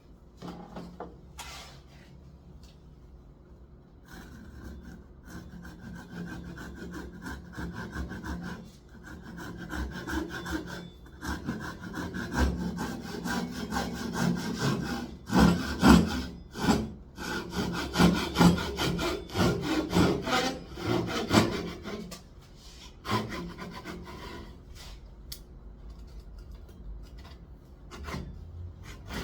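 Hand saw cutting through timber in repeated back-and-forth strokes, growing heavier toward the middle and easing off near the end.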